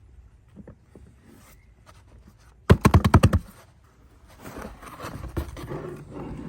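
Soil scraping and rustling as a dumped-out pot of sweet potato plants is worked by hand, with a quick run of about eight sharp knocks nearly three seconds in.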